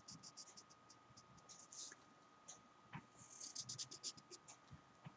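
Faint scratching of a felt-tip marker tip across paper as a curved line is drawn: a few short strokes in the first second, another around two seconds in, and a denser run of quick strokes about three and a half seconds in.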